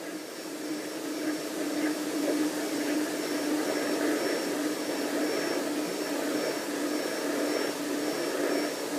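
Shortwave radio static and electronic noise: a steady hiss with a low droning tone under it and a faint high whistle that comes and goes, swelling in over the first couple of seconds.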